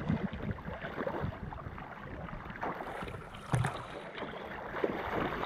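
Sea water splashing and sloshing as a swimmer kicks his legs. There is a sharper splash about three and a half seconds in.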